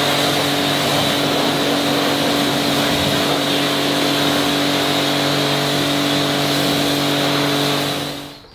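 Pressure washer running: a steady motor hum under the hiss of the water jet rinsing shampoo off a car's bodywork. It cuts off near the end.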